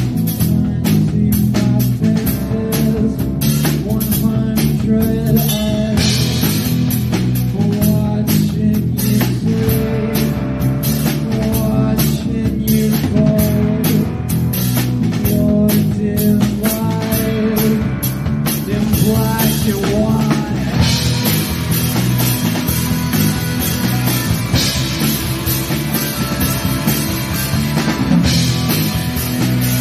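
Live rock band playing through a PA: electric guitars, bass guitar and drum kit. The sound gets brighter and fuller about two-thirds of the way in.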